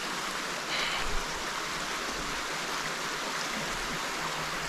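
Steady rushing of a small forest stream running over rocks.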